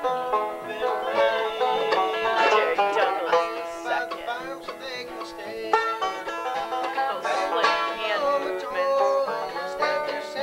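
Acoustic bluegrass band of guitar and upright bass, with picked string notes, playing a lively tune.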